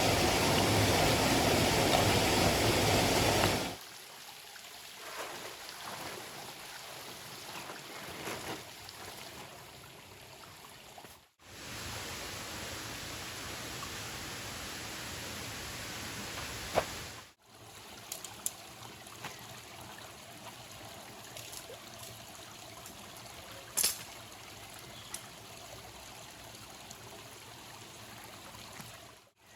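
Steady rush of running water from a stream, over several spliced clips; the first few seconds are much louder, and there are a couple of sharp clicks later on.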